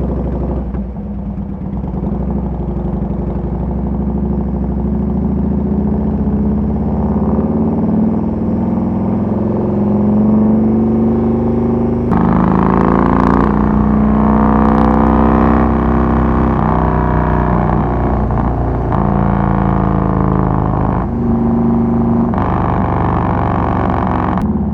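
2006 Harley-Davidson Softail Deluxe's Twin Cam 88B V-twin running on the road, its pitch climbing slowly as the bike accelerates. About halfway through it jumps up, then rises and falls several times with throttle and gear changes.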